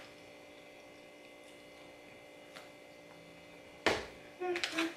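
Quiet room tone with a faint steady hum for most of the time. Near the end a single sharp click, then a short hummed sound from the person at the table.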